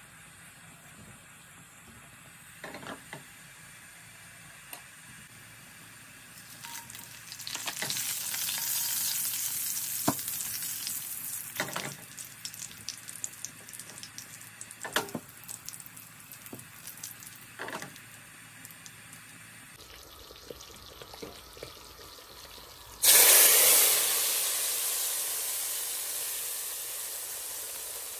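Tempering of cumin seeds and whole dried red chillies sizzling in hot oil in a frying pan, with a few sharp pops. About two-thirds of the way through comes a sudden loud sizzle as the hot oil is poured onto the pot of curry, fading slowly.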